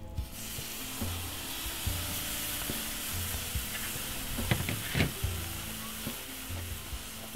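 Marinade poured from a tray onto a hot charcoal grill: it hits with a sudden, loud sizzle that goes on steadily as steam and smoke billow up, with a few sharp clicks about halfway through. Background music with a low beat runs underneath.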